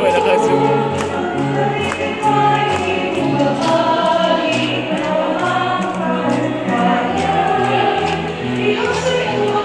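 Church choir singing a hymn with an instrumental accompaniment holding long bass notes.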